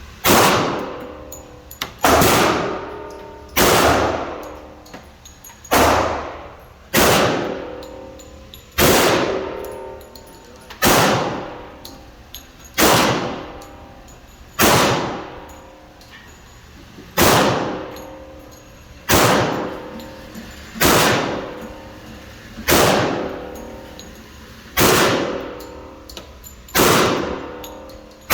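Glock 21 pistol firing .45 ACP in slow, deliberate single shots, about one every two seconds, around fifteen in all, each shot followed by a long ringing echo.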